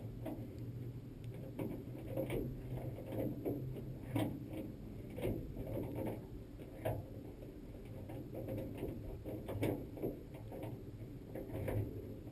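Irregular light clicks and knocks of hand tools working a small metal part, uneven in spacing, over a steady low hum.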